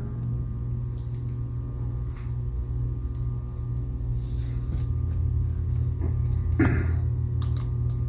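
A steady low hum with a few faint clicks and taps as a small screwdriver and a USB-to-NVMe M.2 adapter are handled, taking the screw out and removing the SSD from the adapter.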